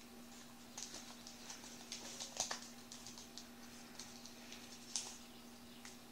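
White origami paper crinkling and crackling as a folded model is pressed and creased between the fingers: scattered small crackles, the loudest about two and a half and five seconds in, over a faint steady hum.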